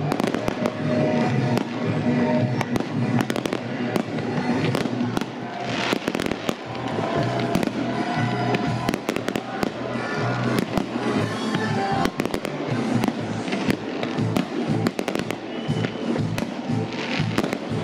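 Aerial fireworks shells bursting and crackling in quick, irregular succession, over music with a steady low beat.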